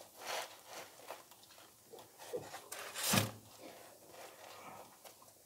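Rustling and rubbing as a mesh running shoe is handled and turned over against tissue paper in its cardboard box, in several short scrapes with the loudest about three seconds in.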